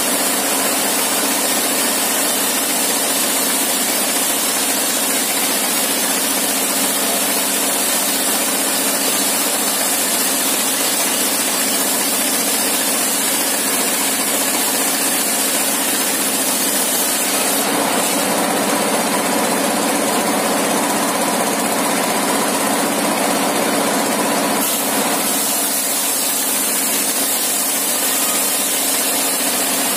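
Engine-driven sawmill circular saw running steadily over the hum of its stationary engine. For about seven seconds in the middle the sound changes as the blade cuts lengthwise along a plank fed across the saw table.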